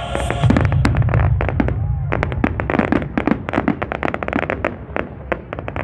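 Aerial fireworks display: a rapid run of sharp cracks, pops and bangs from bursting shells and crackling stars, thinning out and getting quieter toward the end.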